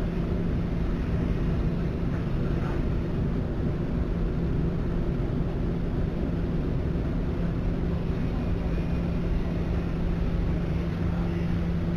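A steady low mechanical hum: a constant drone over rumble, starting abruptly and holding unchanged.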